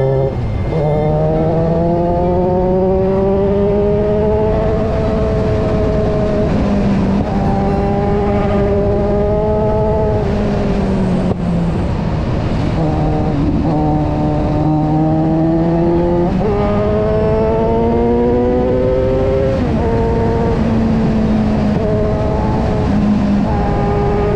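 Kawasaki Versys 1000's inline-four engine, heard on board at speed under a steady rush of wind. The engine note climbs slowly in each gear and drops or jumps at several gear changes through the stretch.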